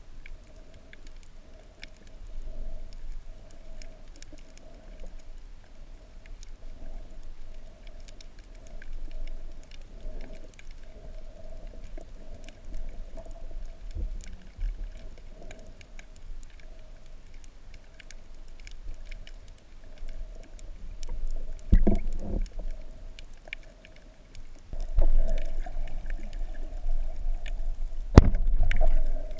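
Underwater ambience picked up by a camera under water: a steady low hum with many faint scattered clicks and crackles. Two louder low thumps stand out, about two-thirds of the way in and near the end.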